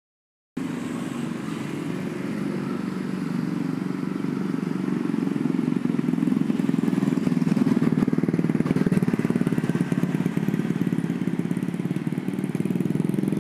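Motorcycle engines running steadily, getting a little louder around the middle as motorcycles pass.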